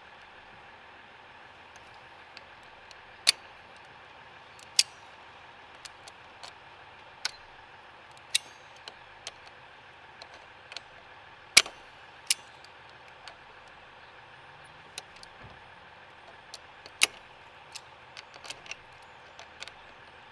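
Locking pliers clicking and slipping on a car battery terminal nut that is being rounded off: sharp metallic clicks at irregular intervals, a few much louder than the rest, over a steady low hiss.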